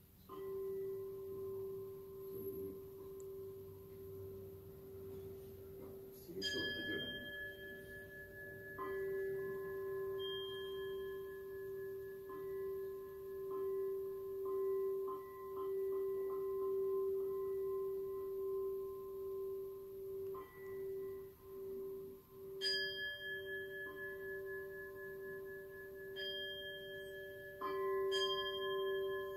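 Buddhist bowl bell (keisu) struck several times, each stroke renewing a long, steady, pulsing ring that carries on between strokes, with a quick run of strikes near the end.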